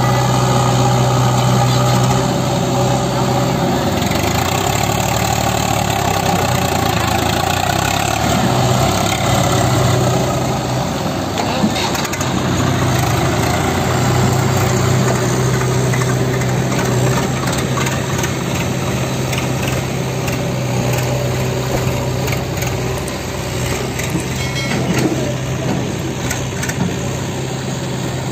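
Heavy diesel engine of farm machinery running steadily with a low, even hum.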